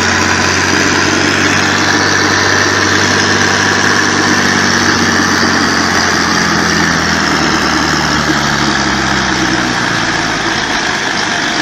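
Diesel tractor engines running flat out under heavy load as an old tractor and a modern John Deere pull against each other in a tug-of-war; a loud, steady engine din, the old tractor's engine over-fuelling enough to pour black smoke.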